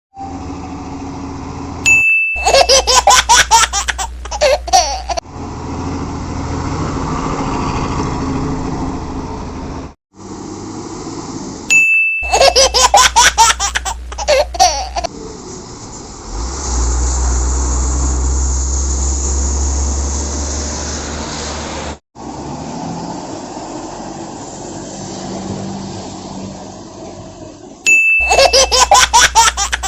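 Edited sound effects: three times, a ding is followed by a few seconds of giggling, child-like laughter. In between runs a low rumbling vehicle-like noise.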